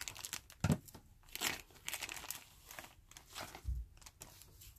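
Thin plastic wrapper crinkling and rustling in irregular crackles as it is cut with scissors and pulled off a paperback book. A soft low thump comes a little past halfway.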